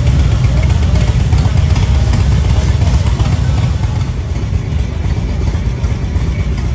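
Motorcycle engines running at low revs, a steady low rumble that eases slightly about two-thirds of the way in.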